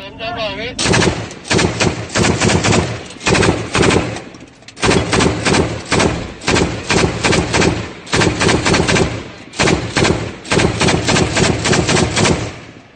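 Machine gun mounted at the roof hatch of an armoured vehicle firing in a series of short automatic bursts, each a quick run of sharp shots, with brief pauses between bursts. Heard from inside the vehicle's cab below the hatch.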